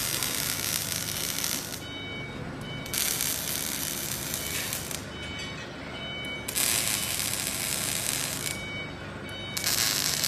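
Welding arc from a robotic welder joining a metal bed frame, sounding in hissing, crackling bursts of about two seconds each: one at the start and three more at roughly three-second intervals, with short pauses between seams and a faint steady machine whine.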